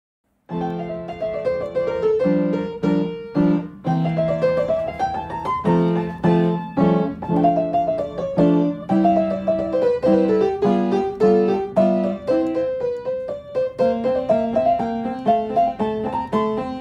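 Instrumental music led by a piano-like keyboard, playing quick runs of notes that rise and fall over a steady lower accompaniment. It starts suddenly about half a second in.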